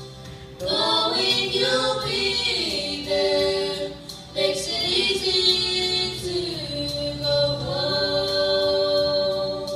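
A small group of young and adult voices singing together in two phrases, with a short break about four seconds in and a long held note near the end.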